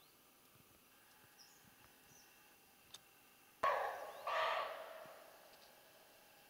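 Roe deer barking twice, two short, loud, rough barks about 0.7 s apart, the second trailing off longer. Faint bird chirps earlier on.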